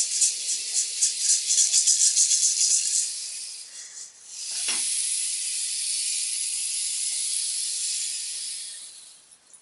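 A rattle shaken in a quick, even rhythm, about five shakes a second, for the first three seconds. After a short break comes a steady hiss lasting about four seconds, which fades out near the end.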